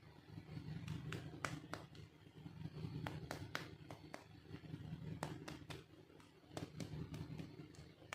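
Hard plastic toy pieces being handled during an unboxing: a string of irregular sharp clicks and taps over a low hum.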